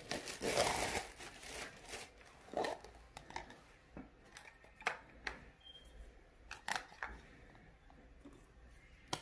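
Crinkling and rustling of plastic for the first couple of seconds, then a scattered series of light clicks and taps as clear plastic mixing cups are handled and set down on a tabletop.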